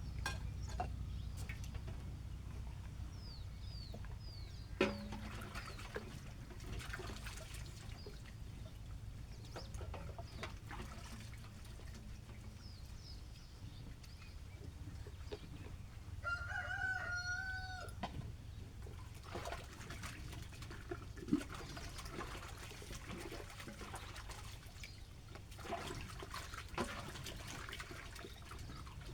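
A rooster crows once, a call of about two seconds in the middle, amid the clinks and splashing of dishes and utensils being washed by hand. Two sharp clinks, one a few seconds in and one past the middle, are the loudest moments, and small birds chirp now and then.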